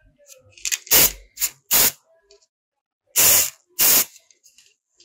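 Four short hissing spray bursts, the third one the longest, with light clicks and taps between them.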